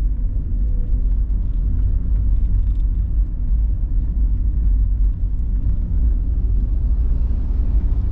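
Steady low rumble of a car driving along a road, heard from inside the vehicle.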